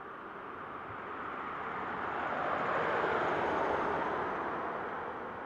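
Land Rover Discovery 5 driving past on an asphalt road. Its road noise swells to a peak about three seconds in, then fades as it goes by.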